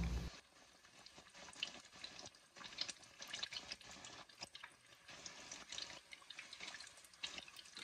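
Faint sizzling and crackling of batter-coated banana pieces deep-frying in hot oil, with many small pops.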